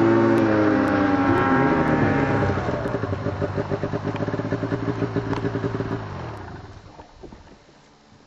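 Snowmobile engine running hard close by, its pitch wavering, then dropping off about six seconds in and fading away as the sled pulls off into the distance.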